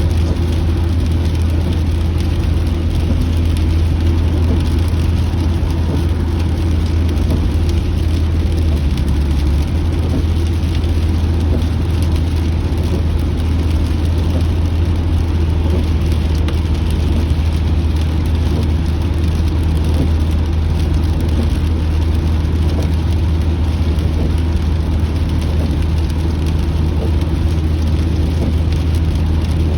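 Steady car interior drone while driving: low road and engine rumble heard inside the cabin, with rain pattering on the car.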